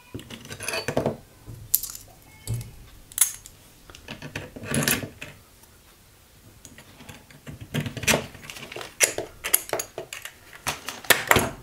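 Small steel M4 bolts clinking and clicking as they are handled and slid through holes in a 3D-printed clamp part. The clicks come scattered, ease off for a moment in the middle, then come thick and fast over the last few seconds.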